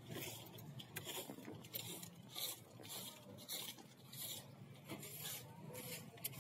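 Footsteps scuffing on pavement at a walking pace, about one step a second, over a faint steady low hum.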